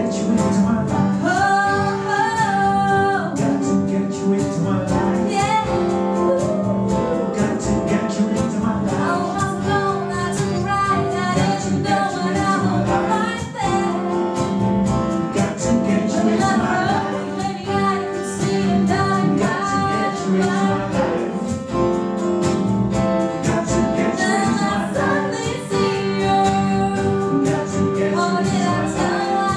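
Live singing by a vocal group, with female voices carrying the melody over guitar accompaniment.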